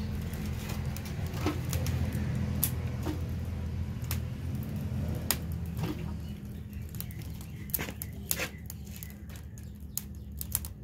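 A steady low machine hum with scattered short, sharp clicks and ticks over it.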